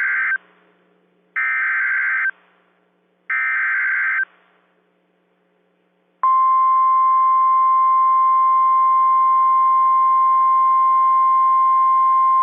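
NOAA Weather Radio Emergency Alert System header and alarm: three short bursts of SAME digital header data about two seconds apart, the first already under way, then after a pause of about two seconds the steady 1050 Hz warning alarm tone starts and holds. This sequence announces a new warning.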